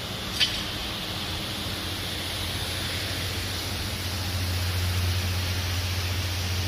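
A steady, hissing machine noise over a low hum that grows louder about four seconds in, with a single short click near the start.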